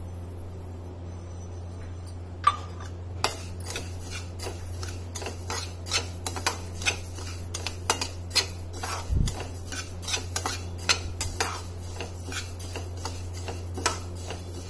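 Metal spatula stirring dry whole spice seeds (fenugreek, black mustard, carom and nigella) around a metal pan as they dry-roast: rapid, irregular scrapes and clicks of metal on metal with the seeds rattling. The stirring starts about three seconds in, over a steady low hum.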